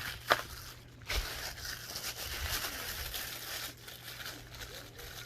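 Packaging being handled during an unboxing: crinkling and tearing rustle of wrapping, with a couple of sharp knocks about a second apart near the start.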